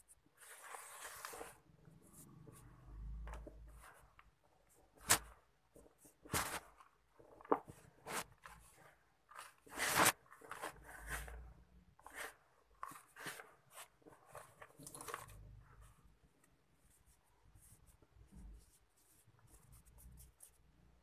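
Hands raking and squeezing dry, gritty sand-and-cement mix in a plastic tub: irregular rustling and crunching of grains and small lumps. Sharp crunches stand out about five, six and a half and ten seconds in, the loudest near ten seconds.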